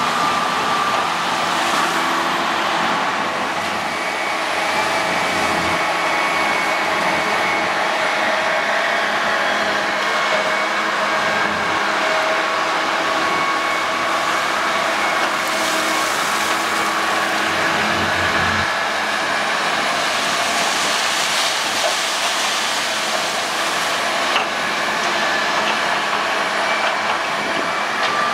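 Diesel engines of a hydraulic excavator and semi-trailer tipper trucks running steadily, a mix of several steady engine and hydraulic tones over a constant rumble.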